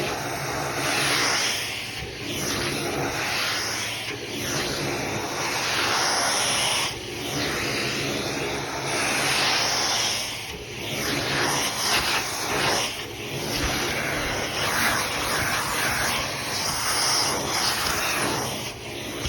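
Electric vacuum cleaner running with a steady whooshing drone that dips briefly every few seconds.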